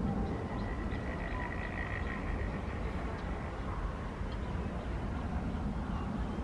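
Low steady rumble of wind on the microphone, with faint croaking frogs in the background, loudest about a second or two in.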